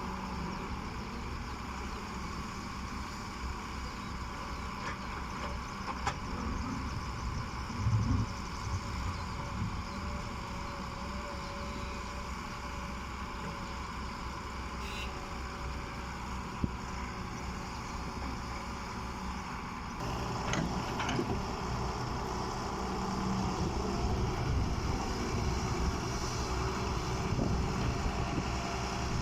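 Diesel excavator engine running steadily while working, with a few scattered knocks. The sound steps up abruptly and gets louder about two-thirds of the way through.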